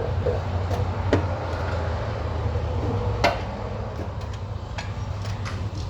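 Irregular metallic clicks and clinks of hand tools and parts during transmission bolt work, the sharpest about three seconds in, over a steady low hum.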